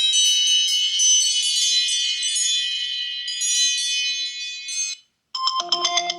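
iPhone 15 Pro ringtones playing back to back. A high chime-like ringtone of many overlapping bell notes fades out about five seconds in. After a short gap the next ringtone starts, a quick run of short, lower-pitched notes.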